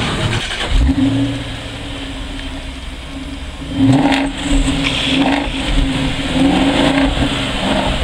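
Jaguar XKR's supercharged V8 catching with a sudden low burst about a second in and settling to a steady idle, then revved in several short blips from about four seconds on, each rising and falling quickly.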